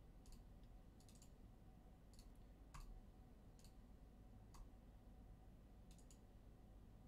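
Faint computer mouse clicks: about eight scattered single clicks, a couple of them in quick pairs.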